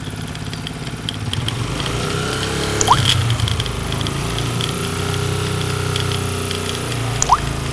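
Motorcycle single-cylinder engine running steadily with an abnormal mechanical noise, light irregular ticking over the engine note, and two short rising chirps about four seconds apart. The noise is the sign of a broken centrifugal oil filter inside the engine side cover.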